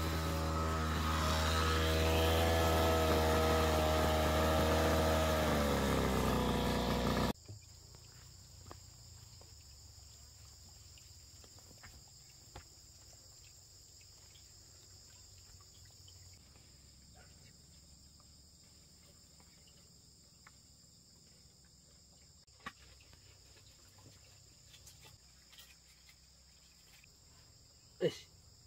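Brush cutter's small petrol engine running steadily, its pitch sagging shortly before it stops abruptly about seven seconds in. After that, insects keep up a steady high-pitched buzz, with a sharp short sound near the end.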